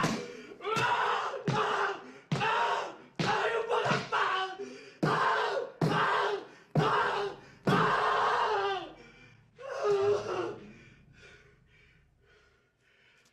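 A man's anguished yells and cries, about ten in a row roughly a second apart, each beginning sharply as his fists strike a concrete cell wall. They weaken into quieter, broken sobbing groans near the end.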